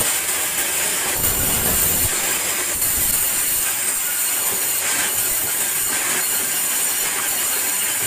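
A steady, loud hissing noise with no distinct knocks or tones.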